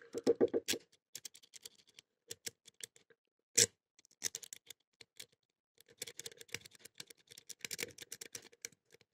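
Lock-picking tool raking and zipping in the keyway of a Blossom pin-tumbler padlock: irregular clusters of small metallic clicks as the pins are bounced, with one sharper, louder click about three and a half seconds in.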